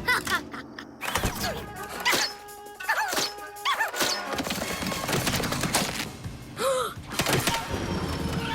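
Cartoon background music with repeated thuds and short swooping-pitch sound effects over it.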